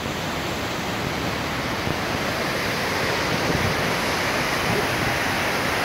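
Great Falls of the Passaic River: water pouring over the rock ledge with a steady rushing noise.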